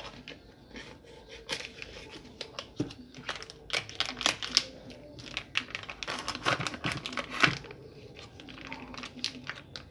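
Plastic vacuum pack of jerked beef (charque) being handled and slit open with a kitchen knife: irregular crinkling and crackling of the plastic, busiest in the middle.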